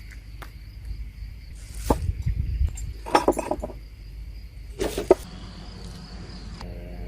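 A steady high insect trill, with a handful of sharp clinks and knocks, the loudest about three and five seconds in.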